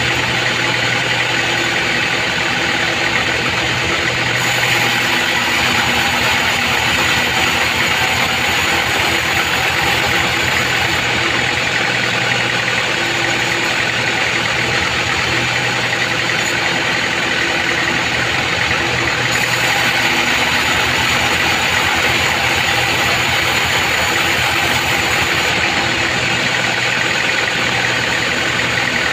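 A sawmill band saw running steadily as it saws trembesi (rain tree) timber on the carriage, giving a constant hum under a dense, hissing machine noise.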